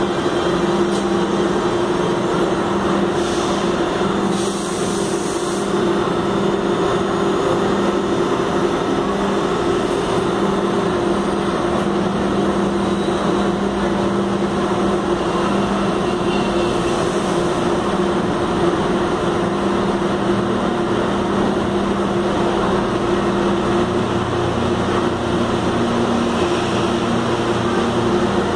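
CPTM suburban electric multiple-unit train slowing to a stop at the platform and standing there, with a steady electric hum from its equipment over a constant rumble. Near the end the hum shifts, and a deeper drone comes in.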